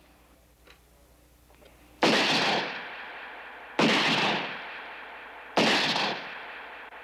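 Three gunshots, a little under two seconds apart, each a sudden sharp crack that dies away over a second or so: a rifle bullet being fired through an apple.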